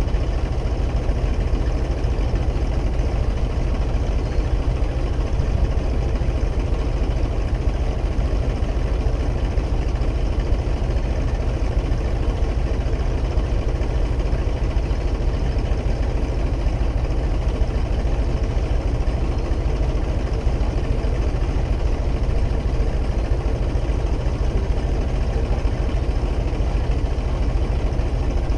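Diesel tractor engine running at a steady speed, driving a water pump; a constant, unchanging drone.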